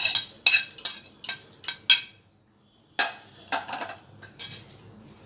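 Spoon scraping and knocking on a ceramic plate as fried chana dal is tipped off it into an aluminium pot: a run of sharp clinks and rattles, a brief pause about two seconds in, then a few more that die away.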